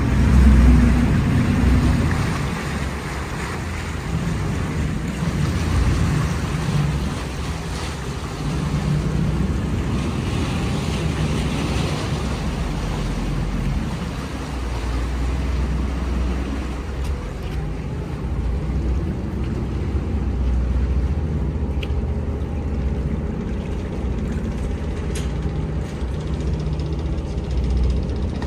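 Ferry's engine running with a steady low rumble, with water wash and wind on the microphone.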